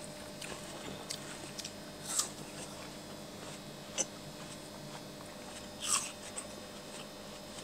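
Watermelon being eaten off forks: faint bites and chewing of the juicy flesh, with a soft wet bite about two seconds in and another near six seconds, and a light click of a fork about four seconds in.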